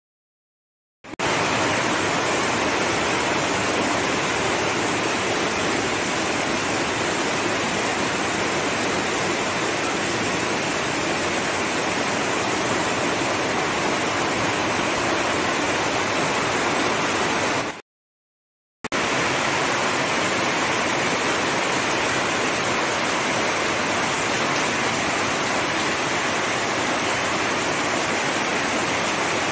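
Heavy rain pouring down steadily, a dense, even hiss. It is broken by about a second of silence at the start and again about halfway through.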